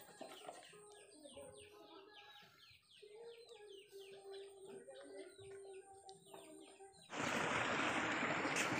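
A bird chirping over and over in quick, short, falling notes, with a faint steady hum beneath. About seven seconds in this cuts abruptly to a louder, steady rushing noise.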